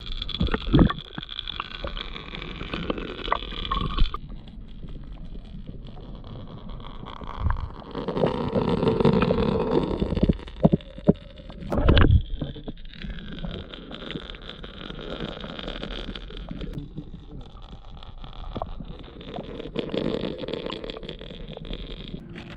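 Muffled gurgling and sloshing of water as picked up by an underwater camera, with a few sharp knocks.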